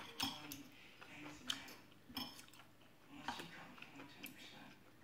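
Quiet chewing of a mouthful of fried rice, with a few short clicks of a metal spoon and fork scraping and tapping on a glass plate.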